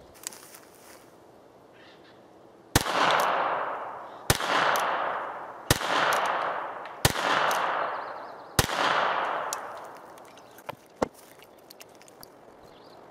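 Five shots from a North American Arms .22LR mini revolver, fired single-action about every second and a half. Each sharp crack is followed by a long echo that dies away over about a second. A couple of light clicks come near the end.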